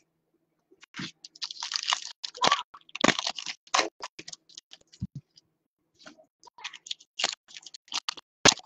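Foil wrapper of a baseball card pack crinkling and tearing in the hands, in irregular crackly bursts with a short lull a little past the middle.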